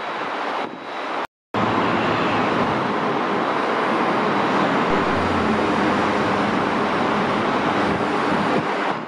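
Steady road-traffic noise with no distinct events. It breaks off completely for a moment a little over a second in, then resumes slightly louder.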